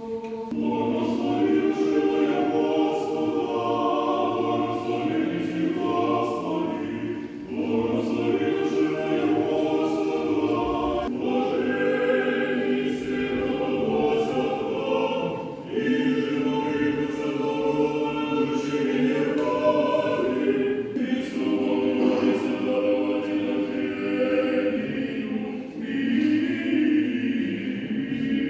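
Men's choir singing Orthodox church chant a cappella in sustained chords, in phrases of several seconds with short breaks between them.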